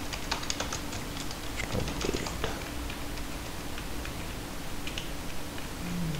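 Typing on a computer keyboard: a quick run of key clicks that thins out to a few scattered keystrokes after about two and a half seconds.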